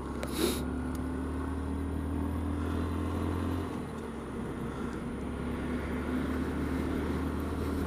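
Honda Z125 Monkey's small single-cylinder engine running steadily while riding at road speed, with a low rush of wind and road noise. The engine note eases and the level dips slightly a little under four seconds in.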